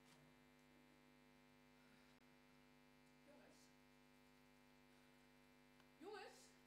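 Near silence with a steady electrical mains hum. A brief faint vocal sound comes near the end.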